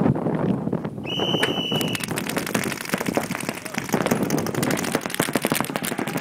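A steady high start tone sounds for about a second, then several paintball markers fire in rapid, continuous overlapping volleys.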